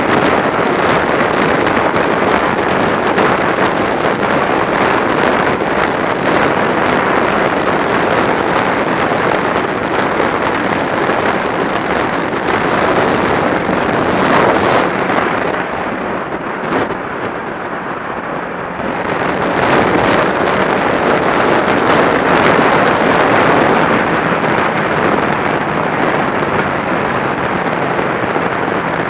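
Sport motorcycle at freeway speed: a loud, steady rush of wind on the microphone over the engine and tyre noise. The rush eases for a few seconds a little past the middle, then comes back.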